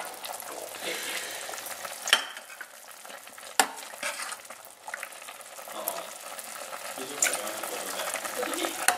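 A metal ladle scoops braised chicken and sauce out of a stainless steel pot, scraping and clinking against the pot. Several sharp knocks of metal on metal come through, the loudest about three and a half seconds in.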